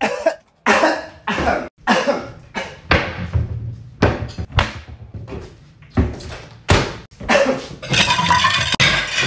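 Repeated coughing mixed with short knocks and thuds. A steady rushing noise sets in near the end.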